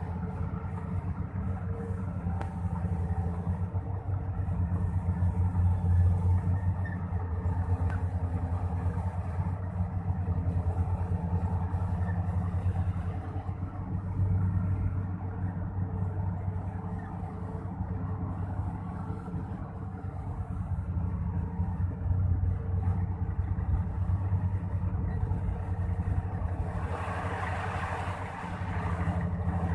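Volvo EC480DL excavator's diesel engine running under load, its low hum rising and easing as the machine works. A burst of hiss comes near the end.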